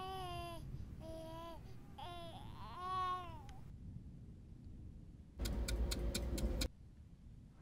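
A voice crying in short rising-and-falling wails, which stop about halfway through. After a brief gap, a loud burst of harsh noise with rapid clicks lasts a little over a second and cuts off suddenly.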